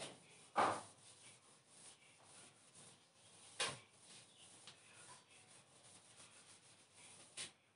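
Whiteboard duster rubbing across the board, erasing marker writing: a faint scrubbing with three sharper, louder strokes, about half a second in, after three and a half seconds and near the end.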